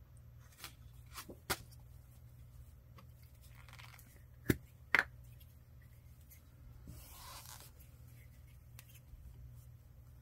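Paper-craft work by hand: a few sharp clicks and taps, the loudest two close together about halfway through, and a short rustle of paper about seven seconds in.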